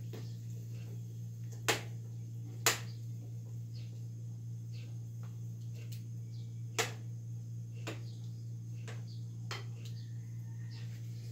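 A long thin utensil stirring in a small metal pot on a gas stove, knocking against the pot with several sharp clicks, over a steady low hum.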